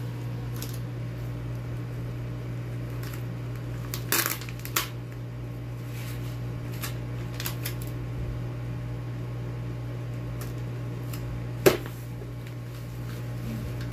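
Paper and plastic handling: light crackles and clicks as a printed sticker label is peeled from its backing and pressed onto a padded plastic mailer. There are two sharp clicks a little after 4 seconds and a louder one about two seconds before the end, over a steady low hum.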